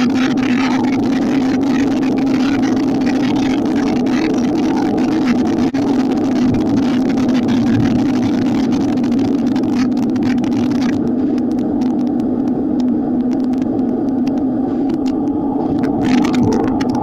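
Steady wind noise buffeting the microphone of a handlebar-mounted camera, with tyre noise on tarmac, as a road bike rolls along at speed. The hiss thins out about two-thirds of the way through.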